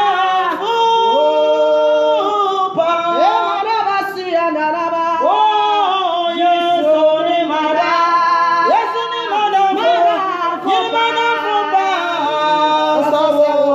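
Two women singing a worship song, their voices sliding up into long held notes.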